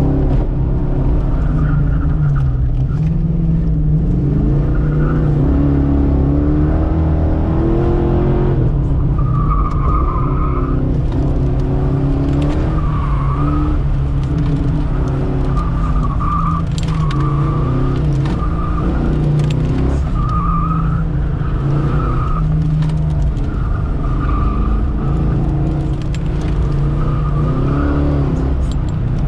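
1990 Fox-body Mustang's 5.0 V8 revving up and down as it is driven hard through an autocross course. From about nine seconds in, the tyres squeal in short repeated bursts through the turns.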